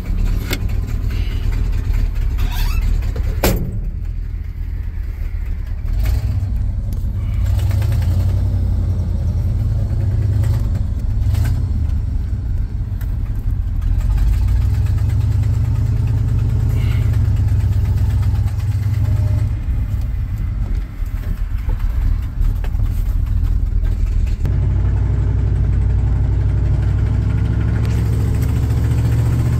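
1975 Chevrolet C65 truck's engine running under way, heard from inside the cab as a steady low drone, with a short sharp sound about three and a half seconds in.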